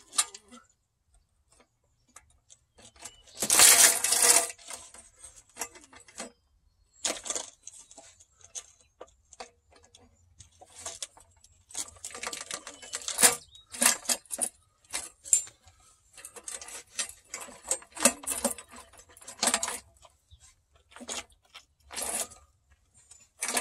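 Metal clinks and scrapes from a chainsaw bar being slid into the clamp of an aluminium chainsaw mill and the clamp being worked by hand, with the saw not running. A louder scraping burst about a second long comes about three and a half seconds in.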